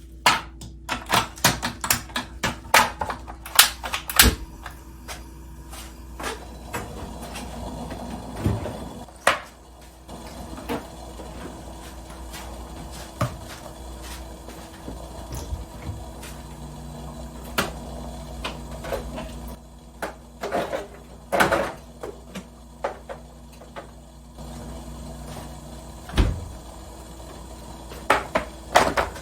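Kitchen cooking sounds: a quick run of sharp knocks in the first few seconds, then scattered clicks and clatters of utensils and dishes over a steady low hum.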